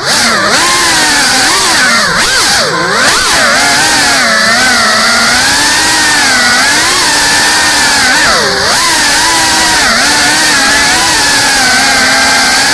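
GEPRC Cinelog 35 FPV cinewhoop's brushless motors and ducted propellers buzzing in flight. The pitch swoops down and back up with sharp throttle changes near the start, twice about two to three seconds in, and again around eight and a half seconds.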